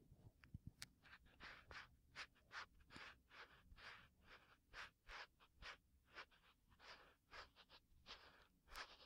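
Ear pick scratching and scraping at the ear of a binaural microphone: soft, close, irregular strokes, about two to three a second.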